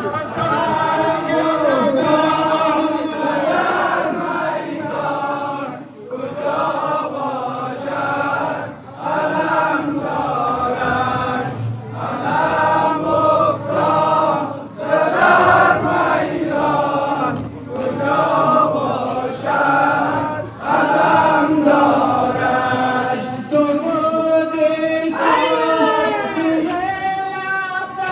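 A crowd of mourners chanting a Shia Muharram nowha (mourning lament) together, phrase after phrase with short breaks. Near the end one voice slides up and down in pitch above the group.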